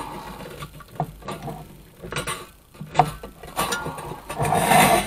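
A few sharp clicks and knocks from handling the metal spring hinge of a lift-top coffee table, then a scraping rustle near the end as a plastic cable tie is pulled free from around the spring, releasing it.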